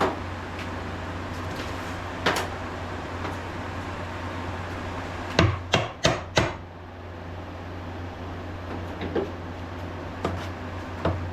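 Sharp knocks and clinks of hand tools on metal: one about two seconds in, then a quick run of four near the middle, and a few lighter clicks later. A steady low hum runs under them.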